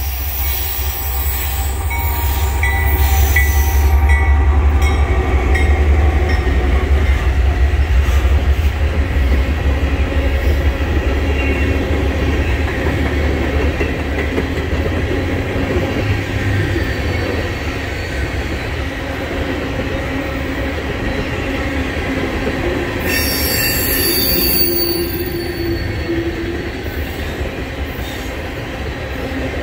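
A Norfolk Southern freight train passing close by. The diesel locomotives give a heavy low rumble that is loudest in the first half. Then the black tank cars roll by on the rails, with thin squealing tones from the wheels, and a brief high hiss or screech comes about two-thirds of the way through.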